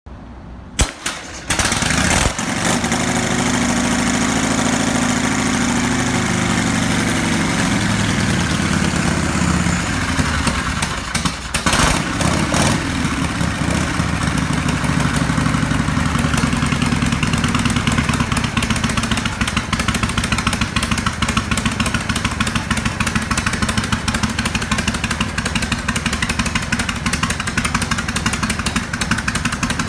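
1981 Harley-Davidson FLHS Shovelhead V-twin kick-started: a couple of knocks from the kick, then it fires about two seconds in. It runs at a fast idle that slowly drops in pitch, takes a quick blip or two of throttle about twelve seconds in, then settles into a steady, rhythmic idle.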